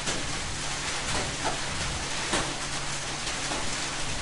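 Steady background hiss with a low hum, broken by a few faint clicks.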